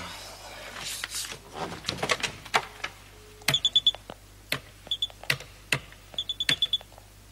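A rotary telephone being dialled. The handset is lifted with a few clicks and a short dial tone sounds. Then the dial is turned and runs back several times, each return a quick run of even ticks.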